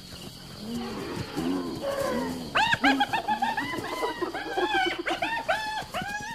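Wild animals calling during a night predator attack on an elephant calf. Short, low, arching calls come first. About two and a half seconds in they give way to a louder, rapid run of short, high, arching cries, several a second and overlapping.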